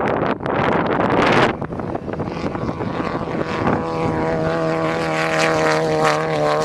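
Off-road race car engine running hard, an air-cooled Volkswagen-based 1600 cc engine of the kind these classes use. There is a rush of noise in the first second or so, then the engine settles into a steady drone at held revs for the second half.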